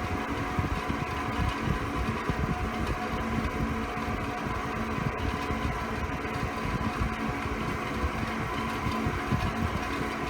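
ILG ILGJet UA-205 18-inch industrial box fan running steadily on medium speed: motor hum with a few steady tones over a rough, fluttering rumble from its worn-out ball bearings, which make it noisy.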